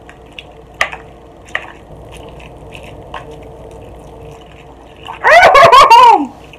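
Soft slurping and chewing of extra-spicy instant ramen noodles, with a few light clicks of a fork. About five seconds in comes a loud, high-pitched cry lasting about a second, falling in pitch at the end: a reaction to the burn of the noodles.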